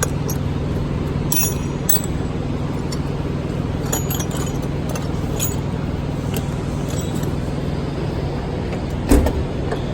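Metal hand tools clinking a few times as they are handled in a toolbox drawer, over a steady background hum; a heavier thump about nine seconds in.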